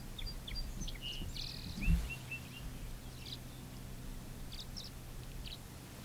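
Tree swallows giving short high chirps and twitters, with a quick run of short falling notes about two seconds in and scattered chirps after. A low rumble lies underneath, and a single low thump, the loudest sound, comes about two seconds in.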